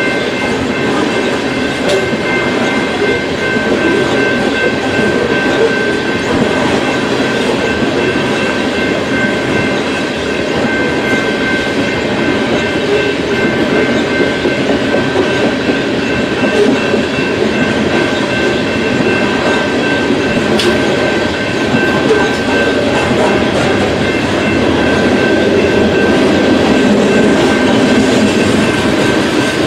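BNSF freight train's cars rolling steadily past, wheels clacking over the rail joints, with a few faint steady high tones over the rumble.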